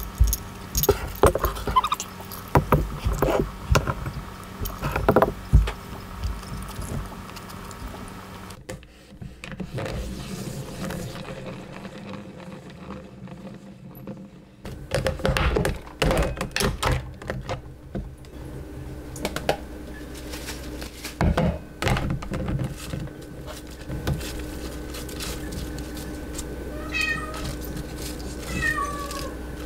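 A series of sharp clicks and knocks, then a cat meowing twice, in short calls near the end.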